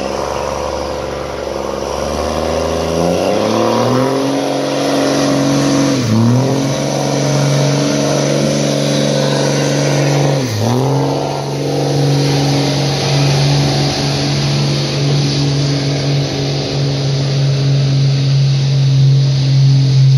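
Dodge Ram pickup's engine under full load pulling a weight-transfer sled. It revs up about three seconds in, drops sharply and recovers twice, then holds at high revs and climbs a little near the end.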